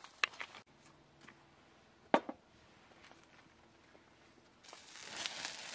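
A couple of sharp taps and clicks, then from near the end the even hiss of chicken sizzling on a grill grate over a wood fire, skin side being crisped.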